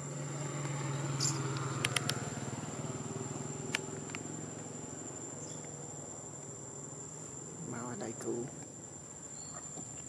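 Steady high-pitched drone of insects throughout, over a low hum that fades after the first few seconds. A few sharp clicks fall in the first four seconds, and there is a short call about eight seconds in.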